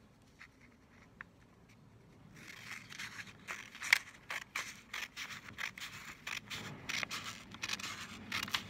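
Scissors cutting through a sheet of printer paper in one long straight cut. Nearly quiet for the first couple of seconds, then a quick, uneven run of snips with the paper rustling.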